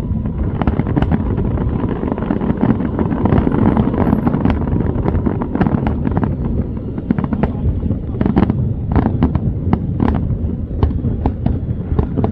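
Fireworks display: a rapid, irregular series of sharp bangs and crackles over a continuous low rumble, coming thickest in the second half.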